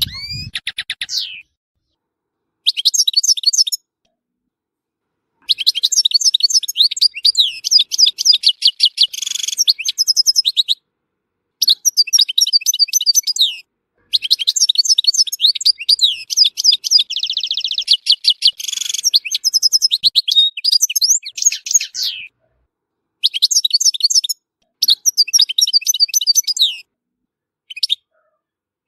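European goldfinch singing: phrases of fast, high twittering notes with a buzzy trill partway through, broken by short silent gaps.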